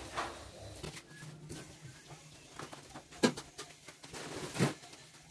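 Faint low steady hum with a few light knocks, the two loudest about three seconds in and again a second and a half later.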